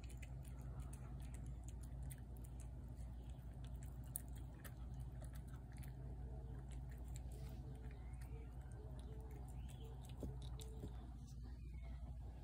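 Domestic cat chewing wet food from a plate: irregular small wet clicks and smacks that stop near the end.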